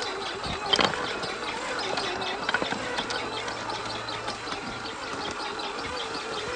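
Cross RC Demon scale crawler's electric motor and G2 aluminum transmission whining at crawling speed, the pitch wavering with the throttle, with a couple of sharp knocks, the loudest about a second in.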